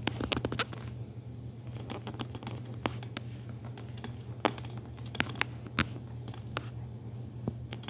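Scattered light clicks, taps and scrapes of a small die-cast toy car being pushed and handled on a hard tabletop, over a steady low hum.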